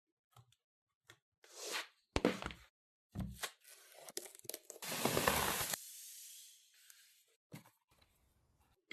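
Packaging of a mechanical keyboard being handled and opened: irregular rustling and tearing of box and wrapping, with a few light knocks. The longest and loudest rustle comes about five seconds in.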